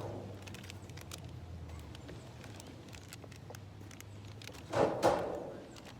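A person chugging carbonated water, with faint clicking gulps, then a loud breathy gasp in two quick pushes about five seconds in as the drinking stops.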